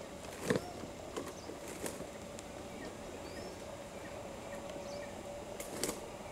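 Quiet outdoor ambience: scattered short clicks and rustles, the strongest about half a second in and a cluster near the end, with a few faint high bird chirps over a steady low hum.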